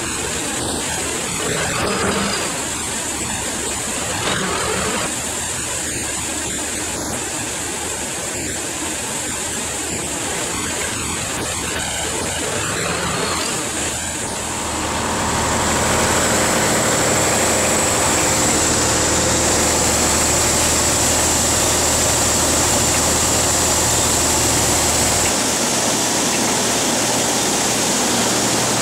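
A steady rushing noise, then about halfway through an engine starts running steadily and louder, with a low hum and a high whine, and keeps running.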